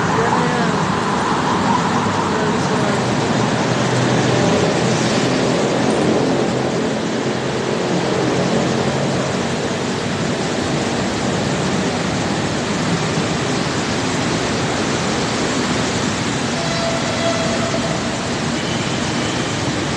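Road traffic on a wet street: motorcycle and car engines running in slow traffic, under a steady wash of noise.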